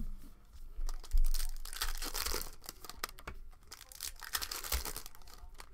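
Foil trading-card pack wrappers being torn open and crinkled by hand, in irregular crackling bursts, with a low thump about a second in.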